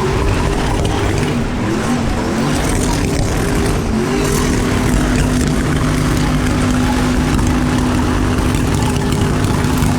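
A V8 car engine in a burnout pit revs up, wavers, then is held at steady high revs for several seconds, with a dense hiss of noise under it.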